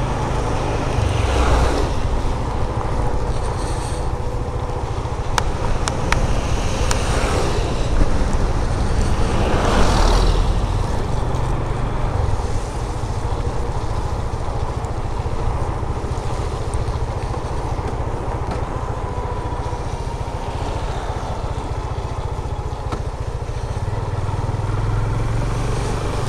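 Motorcycle on the road, heard from a helmet-mounted action camera: the engine runs steadily under wind rushing over the mic. There are a few louder swells about 2, 7 and 10 seconds in.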